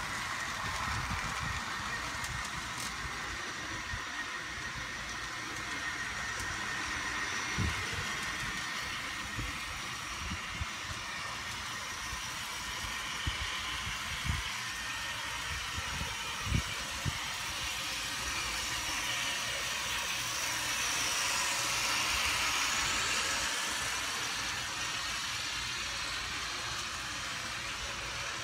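Small Eggliner model trains running on an elevated outdoor track: a steady whirring, rolling noise of the motors and wheels, growing a little louder about three-quarters of the way through, with a few soft knocks.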